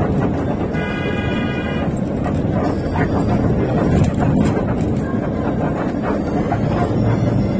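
Steady running noise of a moving vehicle heard from inside, with a single steady tone lasting about a second shortly after the start.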